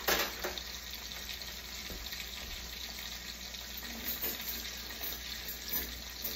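Two steaks searing in a crowded frying pan heated to its smoke point, sizzling steadily. A short clatter sounds right at the start.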